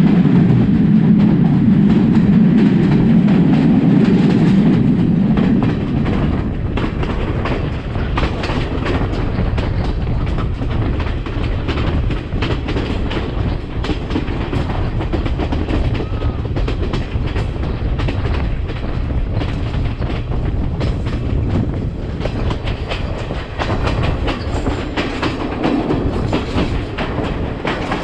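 Sri Lanka Railways passenger train running along the line, its wheels clattering over the rail joints over a steady rumble. The rumble is louder for the first five seconds or so, then eases a little.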